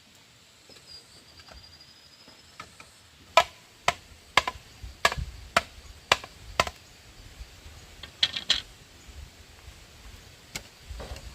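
A series of sharp, irregular strikes, about eight in three seconds, then a quick pair and a last single one.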